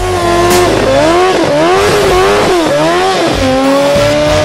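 Several sport motorcycles revving hard together while doing a standing burnout, their engine pitch rising and falling over and over, then holding steadier near the end.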